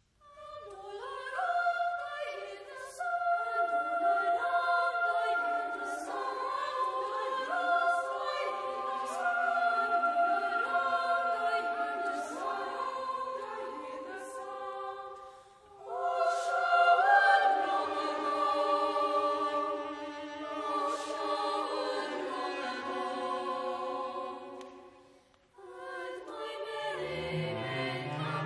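Boys' choir singing in sustained phrases that break off briefly about fifteen seconds in and again near the end.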